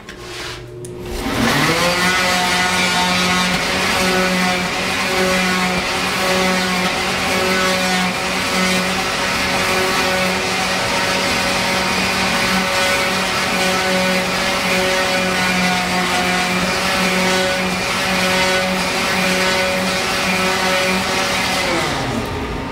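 An electric woodworking shop machine runs up to speed about a second in, runs at a steady pitch, then winds down just before the end.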